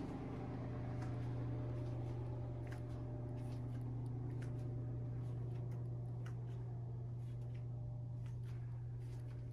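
Steady low hum of indoor room tone, with faint scattered clicks over it.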